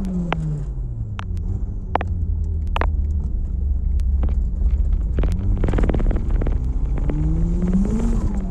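Turbocharged DSM's 4G63 four-cylinder engine driving under way: a steady low drone, then near the end the engine pitch climbs and drops again as it accelerates and lets off, with scattered sharp clicks throughout.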